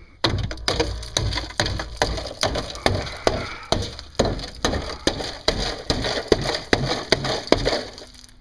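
Hammer blows, about three a second, crunching into a rusted-out pickup rocker panel and breaking away rotted sheet metal and rust; they stop just before the end.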